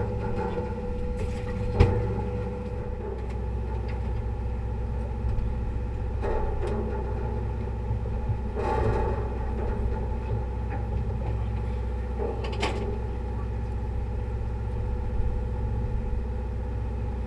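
A party fishing boat's engine running steadily, a low rumble with a steady hum, with one sharp knock about two seconds in and a few fainter clatters later.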